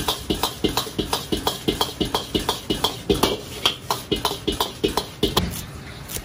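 A metal wok ladle clanking and scraping against a wok in a steady rhythm, about three strikes a second, each with a short metallic ring, as rice is tossed and stir-fried. The clanking stops about five and a half seconds in.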